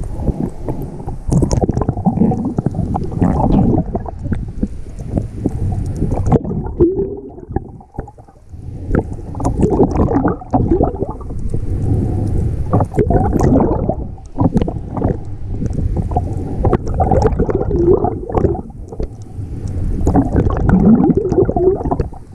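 Muffled underwater rumbling and gurgling of water around a GoPro 5 housing on a full face snorkel mask while the snorkeler swims, with scattered small clicks. The noise drops away briefly about eight seconds in and again near fourteen seconds.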